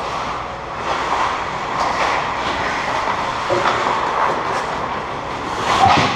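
Hockey skates scraping and carving on rink ice, with short clicks from sticks and puck on the ice. The scraping swells louder near the end as a skater comes up to the boards close by.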